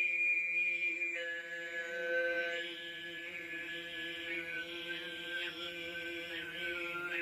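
Altai throat singing: a steady low drone with a high whistling overtone above it. The overtone drops to a lower note about a second in, then wavers slowly with short upward flicks near the end.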